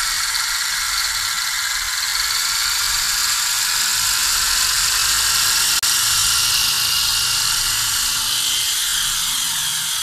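Toy RC helicopter's small electric motors and rotors whirring steadily as it runs up and flies, growing a little louder over the first half, with a brief break about six seconds in.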